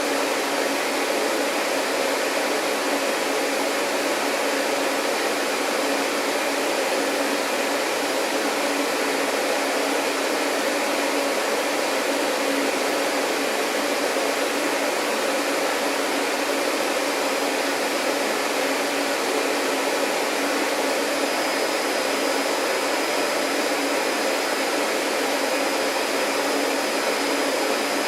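Vacuum cleaner motor running steadily with an even whooshing hum and no changes in speed; a faint high whine joins about three quarters of the way through.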